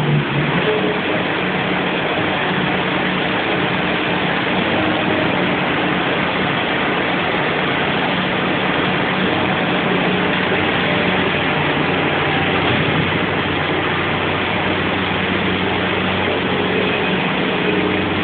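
Bobcat skid-steer loader's engine running steadily at an even speed, a constant drone with no changes in pitch.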